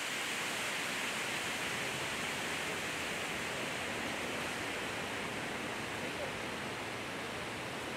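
Steady, even outdoor hiss with no distinct events, strongest in the upper-middle range.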